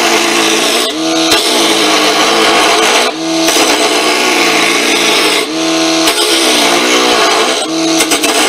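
A hand gouge roughing a spinning redwood blank on a small mini wood lathe driven by a low-voltage motor run at 12 volts: a loud, steady rushing scrape of the cut. It is broken about every two seconds by a brief dip where the lathe motor's hum comes through on its own.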